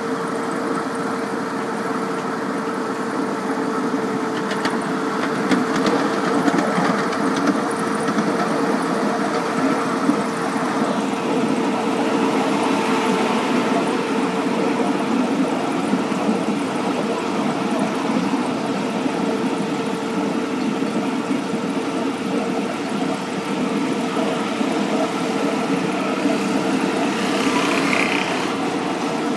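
Ride-on 7¼-inch gauge model SD40-2 diesel locomotive running along the track, heard from on board: a steady mechanical drone with a constant whine.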